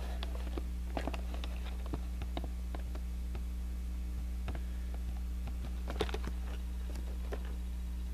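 Scattered light clicks and taps of handling noise, the clearest about six seconds in, over a steady low electrical hum.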